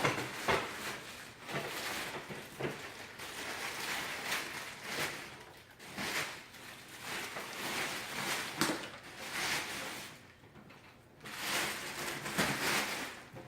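Unpacking and handling noises: rustling packaging with irregular knocks, clicks and scrapes as the desk parts are moved about.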